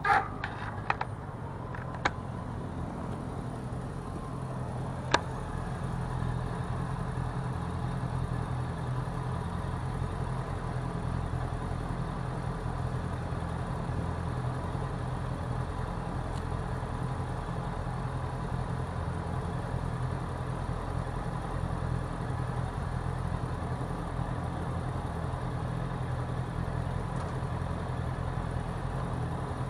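Steady motor traffic and road noise heard from a bicycle riding on city streets, with a few sharp clicks in the first five seconds.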